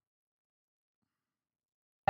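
Silence: the audio is cut to near nothing.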